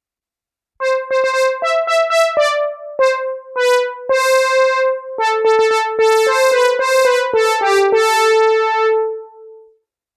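Roland System-8 synthesizer playing a Jupiter-8 preset: a bright keyboard patch plays a melody of short separate notes, starting about a second in, with some notes overlapping later on, until the last note dies away near the end.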